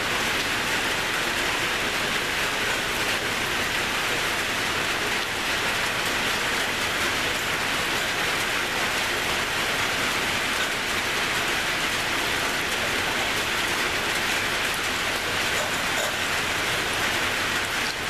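A steady, even hiss with no breaks or separate sounds in it.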